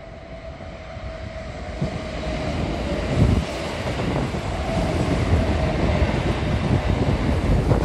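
Kintetsu electric train passing through the station platform, its rumble growing louder as it nears and runs alongside. A faint whine sounds at first, and wheel knocks come over the rail, the loudest about three seconds in.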